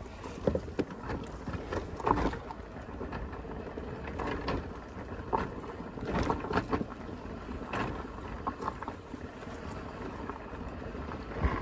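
TVS Ntorq 125 scooter rolling slowly down a dry dirt trail, tyres crunching over the ground with scattered knocks and rattles from bumps, over a low rumble on the microphone.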